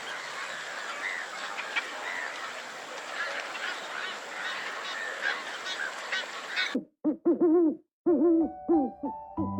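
Many birds chirping at once over a steady hiss. About two-thirds of the way through, the sound cuts abruptly to a single bird giving a run of short, arching, hoot-like calls, with music coming in at the very end.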